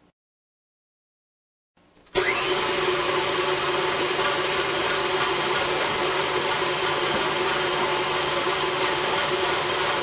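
KitchenAid stand mixer motor running with a Beater Blade scraping paddle, mixing butter, sugar and egg batter. Cuts in abruptly about two seconds in after dead silence, then runs steadily.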